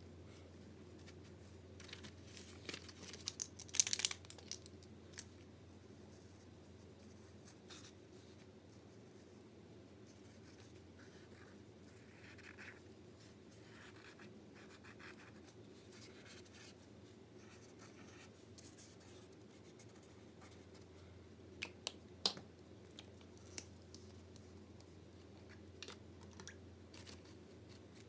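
Faint scratching of a marker and pastels drawn across watercolor paper, in short spells, with a few sharp taps and clicks about four seconds in and again later, over a low steady hum.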